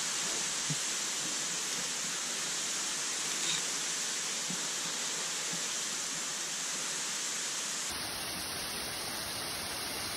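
Steady, even rushing noise that changes character abruptly about eight seconds in.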